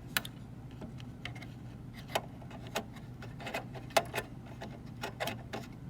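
Scattered light clicks and taps as an expansion card and its metal bracket are handled and fitted into a server chassis, over a steady low hum.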